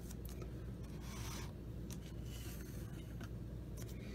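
1985 Topps baseball cards being handled: a few soft rubbing swipes of card stock sliding against card stock, with faint clicks, over a low steady hum.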